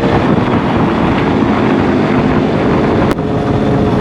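Motorcycle engine running at a steady cruising speed under a loud rush of wind on the microphone, with a brief click about three seconds in.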